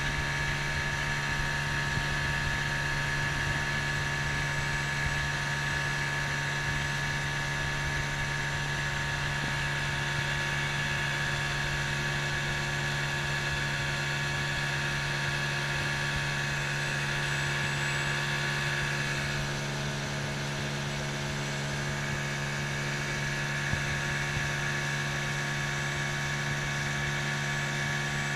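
Small boat's outboard motor running steadily at cruising speed, a constant low hum with a thin high whine over it that shifts slightly about two-thirds of the way through.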